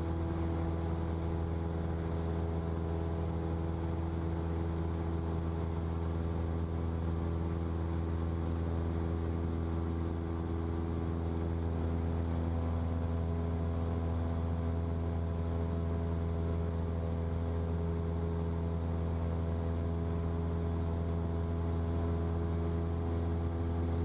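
Single-engine Cessna's piston engine and propeller droning steadily at constant power, heard from inside the cockpit, with a strong low hum and unchanging pitch.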